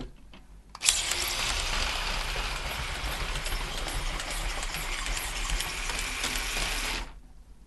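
Mould King 12003 QJ brick-built RC steam locomotive running round its plastic track oval at full speed: the steady whir of its two battery-powered motors and gearing and the wheels on the rails. It starts abruptly at full level about a second in, since the locomotive jumps almost at once to top speed, and cuts off near the end.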